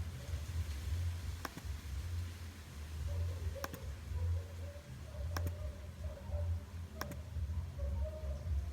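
Four sharp single clicks, spaced about one and a half to two seconds apart, over a steady low hum: clicks made while working the computer through the macOS installer.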